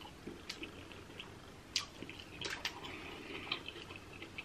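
Faint eating sounds: a handful of small, sharp clicks and wet mouth smacks scattered over a few seconds.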